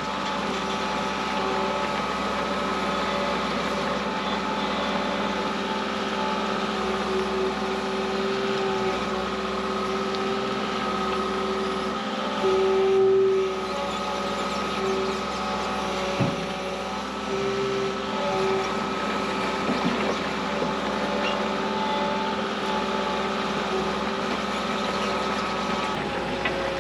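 Kato compact track loader's engine running steadily while it spreads slate fill, briefly louder about halfway through.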